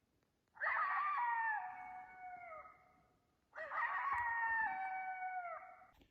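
Two long canid howls, each beginning with a short quiver, then held steady and falling in pitch near its end, with a pause of about a second between them.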